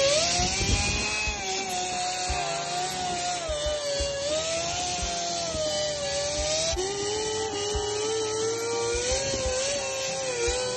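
A wire wheel on a power tool scrubbing paint and rust off a tractor's steel dash panel, stripping it to bare metal. The motor's whine wavers up and down as the wheel is pressed against the metal, drops lower about seven seconds in, and runs over a steady scratching of wire bristles on steel.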